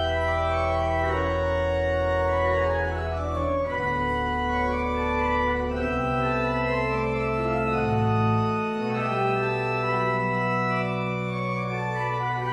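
Church organ playing the postlude after the blessing: full sustained chords over held bass notes that change every few seconds, with upper voices moving above.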